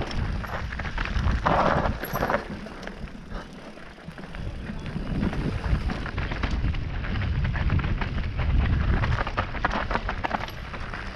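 Wind buffeting an action camera's microphone as a mountain bike rides down a rocky trail, with scattered knocks and rattles from the bike and tyres over stones.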